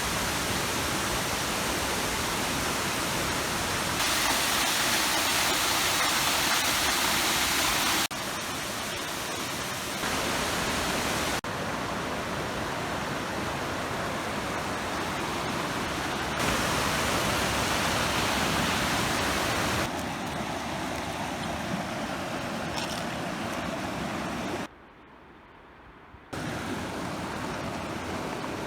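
Rushing water from streams and waterfalls, a steady hiss and rush that changes abruptly in loudness every few seconds as one clip cuts to the next, with a briefly quieter stretch near the end.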